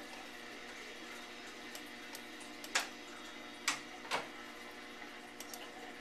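Three sharp clicks close together about halfway through, with scattered faint ticks over a steady faint electrical hum.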